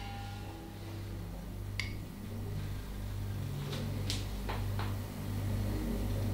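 A few faint, light clicks of a metal bar spoon touching the glass honey jar and steel shaker while honey is spooned out, over a low steady hum.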